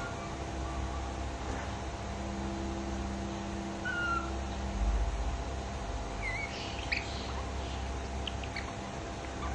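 A few short, high-pitched chirps over a steady low hum: falling ones near the start and about four seconds in, and a wavering one a little after six seconds.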